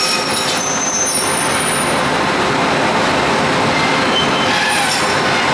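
Tongli TL61250 twin-shaft scrap metal shredder running, a loud, steady grinding din with high-pitched metallic squeals near the start and again about five seconds in, as car body metal is worked toward its hook-bladed cutters.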